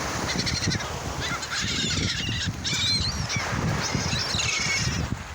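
Gulls calling over one another, many short squawks and cries overlapping without a break.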